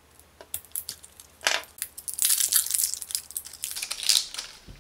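Handling sounds of a 9-volt battery at a plastic multimeter's battery compartment: a few sharp clicks, then a stretch of dry crinkling and scraping about two seconds in, and another brief scrape near the end.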